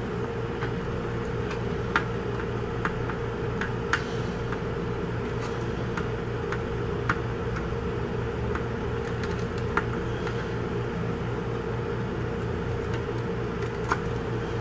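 Scattered light clicks of pliers and a soldering iron tip against a circuit board as a gauge stepper motor is desoldered and lifted out, over a steady background hum.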